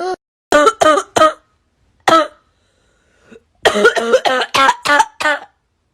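A person's voice making short cough-like bursts, a voice imitation of a car engine 'coughing' when throttled, the stutter that dirty spark plugs cause. A few single bursts come first, then a quick run of them about three and a half seconds in.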